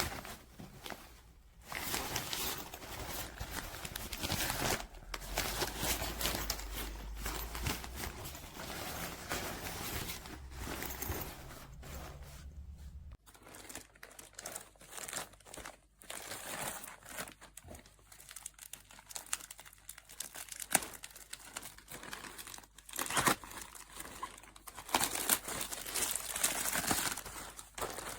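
Irregular crinkling and rustling of material being handled, with scattered sharp clicks; busier in the first half and again near the end, sparser in between.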